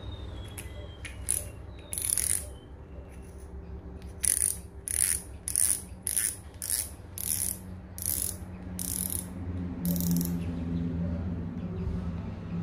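Aluminium-bodied spinning reel (Lurekiller Saltist CW4000) ratcheting in about a dozen short, high-pitched bursts as its spool and drag knob are turned by hand. The bursts come a little over half a second apart and stop about ten seconds in.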